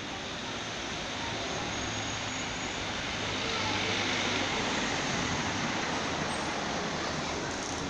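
Street traffic picked up by a smartphone's microphone: cars running at a road junction, with one driving past close below and the traffic noise swelling from about three seconds in.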